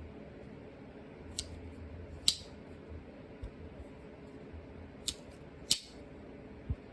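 Sharp clicks of a two-blade slip-joint Barlow pocket knife's carbon-steel blades being opened and snapped shut, four clicks in two pairs with the second of the first pair loudest, plus a couple of soft low thumps of handling.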